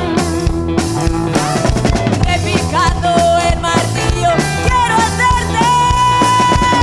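Live rock and roll band playing: electric guitars, bass and drum kit on a driving beat, with a woman's voice singing and holding a long note in the second half.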